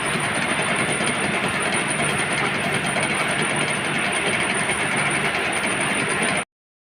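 Lathe running: a loud, steady mechanical noise with a thin high whine over it, stopping abruptly near the end.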